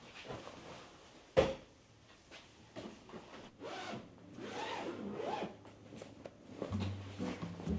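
Close-up handling sounds: a single sharp knock about a second and a half in, then a few rasping strokes like a zipper being pulled. Soft music comes in near the end.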